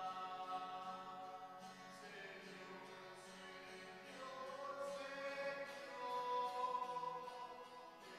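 Liturgical singing of a part of the Mass: a slow sung melody with long held notes that change pitch every second or two.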